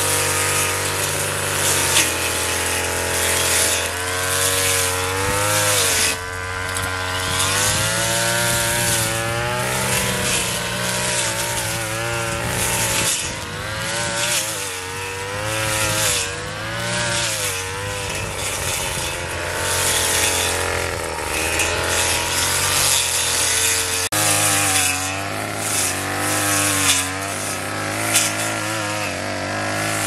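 Petrol brush cutter running under load while cutting weeds, its engine pitch wavering up and down over a constant hiss.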